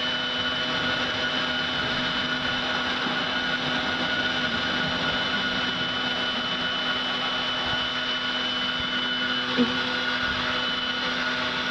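Corded electric leaf blower running steadily at full speed through a long tube, a constant motor whine over rushing air. There is a brief knock about two thirds of the way in.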